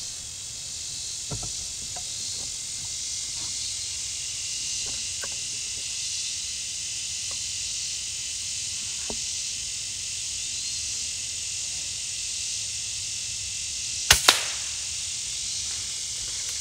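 A .22 FX Impact PCP air rifle fires once near the end: two sharp cracks a fraction of a second apart, over a steady high-pitched hiss.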